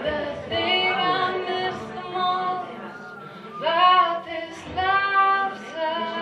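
A woman singing live with long held notes that slide in pitch, over acoustic guitar. The loudest phrase comes about four seconds in.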